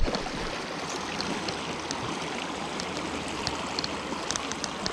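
Small mountain creek rushing steadily over rocks and a log riffle, with a short knock right at the start and a few faint ticks.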